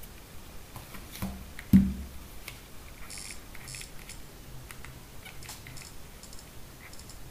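Smartphones being handled on a tabletop: a light knock and then a louder thump as a phone is set down and the other picked up, followed by a run of small plastic clicks from a BlackBerry Bold 9000's physical QWERTY keys and menu key pressed under the thumbs.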